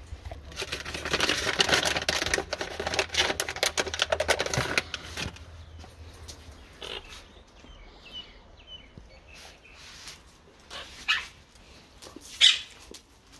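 Plastic snack packet crinkling as it is handled and opened, for about five seconds, followed by a quieter stretch with two short sharp sounds near the end.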